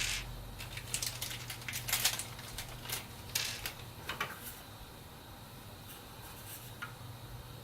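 Small screws and a solid state drive being handled and fitted into a drive tray: light clicks, taps and scrapes for the first four seconds or so, then only a faint low hum.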